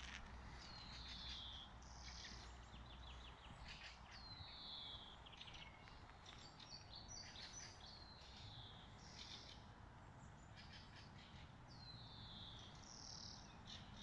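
Songbirds singing faintly in woodland. One bird repeats a short, high, falling phrase every few seconds, with other chirps and brief trills in between, over a faint background hum.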